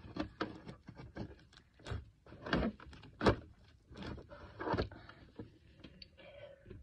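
Skincare items knocking and clattering against a plastic storage box and its drawers as they are pushed into place: a run of sharp, irregular knocks, the loudest about two and a half, three and a quarter and nearly five seconds in.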